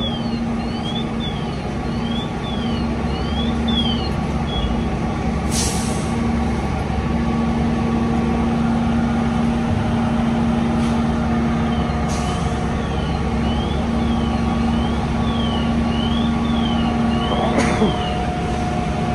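Large truck engines running steadily with a low hum, broken by a sharp air-brake hiss about five and a half seconds in and another about twelve seconds in. A high electronic tone sweeps up and down about twice a second in the background for much of the time.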